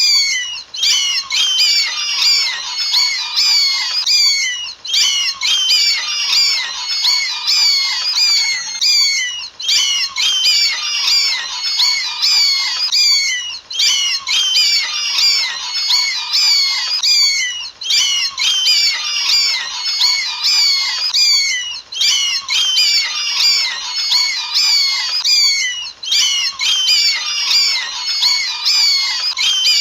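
A crowd of bats squeaking and chattering, many quick high-pitched chirps overlapping, with the same short stretch of calls repeating about every four seconds.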